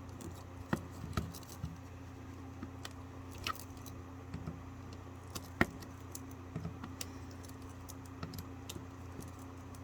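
Pocket knife working on a plastic surge protector casing and its screws: scattered light clicks and scrapes, the sharpest about five and a half seconds in, over a steady low hum.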